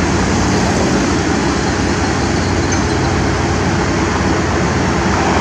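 Vibratory pile-driving hammer running, vibrating a steel sheet pile into the ground: a loud, steady drone.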